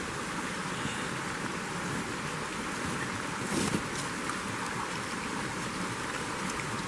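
A small stream running: a steady rush of flowing water, with a brief louder rush a little past halfway.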